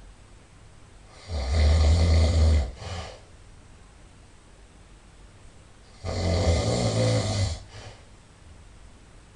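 A person snoring loudly: two long snores about five seconds apart, each lasting about a second and a half, with a short, fainter sound just after each.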